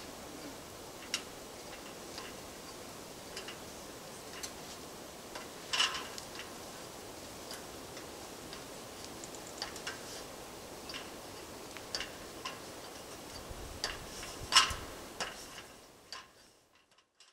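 Scattered light clicks and taps at uneven intervals over a steady hiss, the loudest about six seconds in and near the end; the sound fades out at the close.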